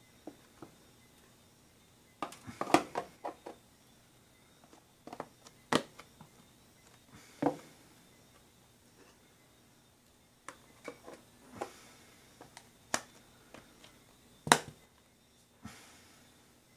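Plastic food-storage tubs and lids being handled on a wooden table: scattered sharp clicks and knocks as lids are snapped on and tubs are set down, with a quick cluster a couple of seconds in and a sharp knock near the end.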